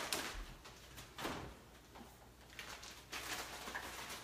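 A refrigerator door being opened and a plastic bag put inside, heard as several short rustles and knocks a second or so apart.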